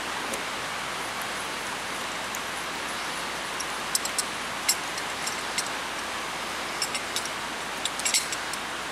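Steady hiss of rain on a tin roof, with scattered light metal clicks and clinks from about four seconds in as a flaring tool is screwed down to form the flare on a 3/16-inch brake line.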